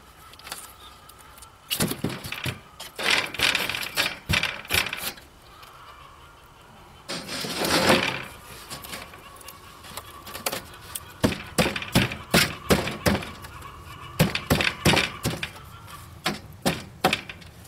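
A wooden board being worked into place inside a wooden hutch frame: a string of irregular knocks and taps of wood on wood, with a longer scraping rub about eight seconds in.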